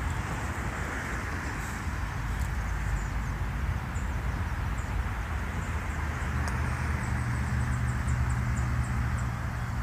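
Open-air ambience with a steady low rumbling noise and small birds chirping in short high calls. From about six seconds in, the low hum of a vehicle on a nearby road comes in and holds steady.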